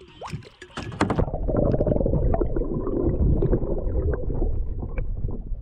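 Muffled gurgling and sloshing of water with small knocks, heard through a camera microphone held underwater. It starts about a second in and then carries on.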